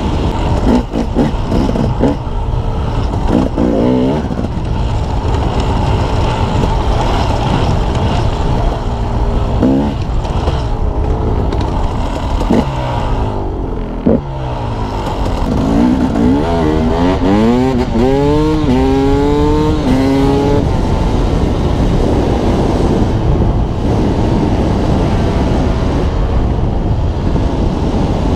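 KTM 300 XC-W two-stroke single-cylinder dirt bike engine revving up and down under riding, with heavy wind rush on the helmet-mounted microphone. About two-thirds of the way through, a run of rising revs as it pulls up through the gears.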